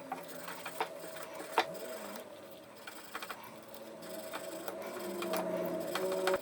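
A small motor-driven machine running steadily, with scattered sharp clicks and knocks.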